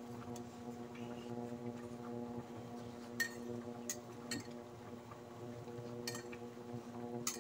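Steady electrical hum of an induction cooktop heating a steel pot of vegetable soup, with a few light clicks as pieces of fried fish are laid in the pot.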